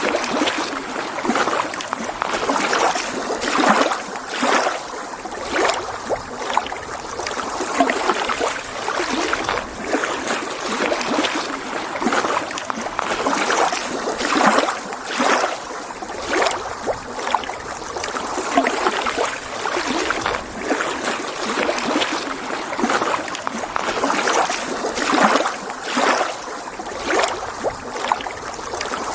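Small lake waves lapping and splashing against the shore, in irregular swells every second or two with many small splashes between.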